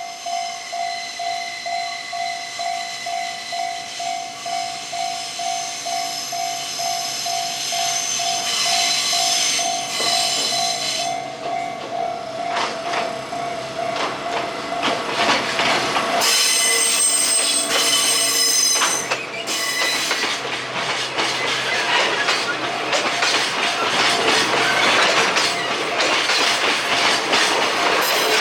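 Level-crossing warning bell ringing in a steady pulse, about one and a half strikes a second, while a DD200 diesel locomotive approaches with a growing rumble. About halfway through, a high squeal rings for about three seconds. Then the locomotive's engine and wheels rumble and clatter over the crossing.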